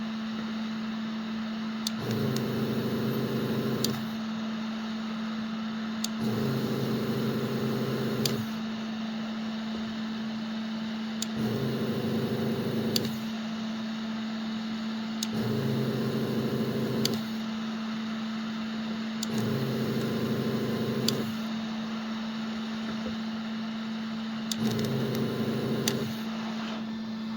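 Electric soldering rework equipment running with a steady hum, while a deeper buzzing hum switches on for about two seconds six times, roughly every four seconds, with a click as each starts and stops.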